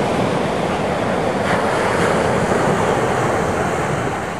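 Ocean surf breaking and washing up the beach, a steady rush of water noise.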